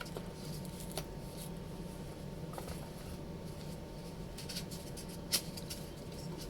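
Faint clicks and rustles of hands handling a soundhole pickup at an acoustic guitar, with one sharper click about five seconds in, over a steady low hum.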